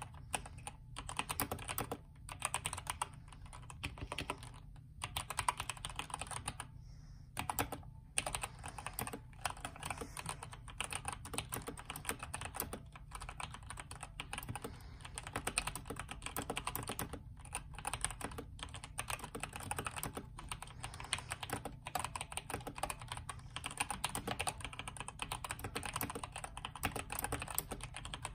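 Continuous fast typing on a Redragon K552 mechanical keyboard with stock Outemu Red linear switches. The case is filled with polyfill, the PCB is tape-modded and the space bar stabilizers are taped. A few short pauses break the dense run of keystrokes.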